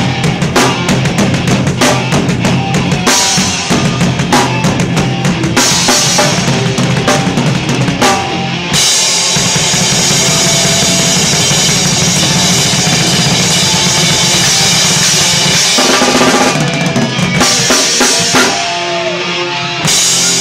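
Rock drum kit played hard with a live band: rapid kick, snare and cymbal hits, giving way about nine seconds in to a long, steady wash of ringing cymbals over the band for several seconds, then rapid hits again near the end.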